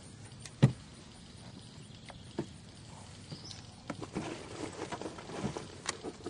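A single sharp thump about half a second in, then scattered light knocks and clicks that grow denser near the end.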